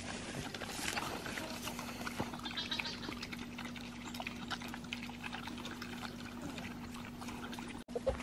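Pigs chewing watermelon rind: wet, irregular smacking and crunching, over a faint steady hum.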